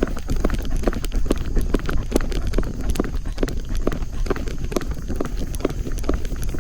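Footsteps at a steady walking pace, about two or three steps a second, over a constant low rumble.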